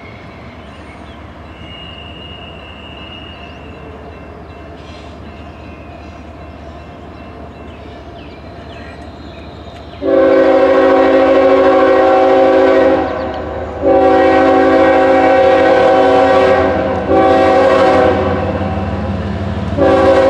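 CSX diesel freight locomotive approaching with a low rumble, then about halfway through sounding its air horn, a chord of several notes: two long blasts, a short one, and a fourth long one starting near the end. The long-long-short-long pattern is the standard warning for a grade crossing.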